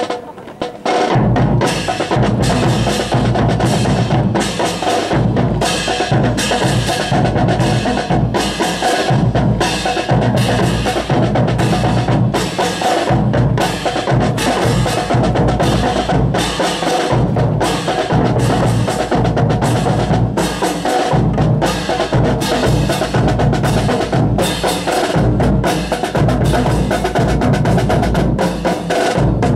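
Marching drum cadence of snare and bass drums with a wood-block-like click, keeping a steady beat about one and a half strokes a second, accompanying a rifle drill.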